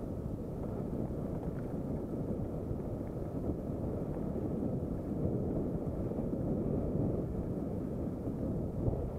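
Steady wind noise buffeting an action camera's microphone during a fast mountain-bike descent, mixed with the low rumble of the bike rolling over a loose gravel trail.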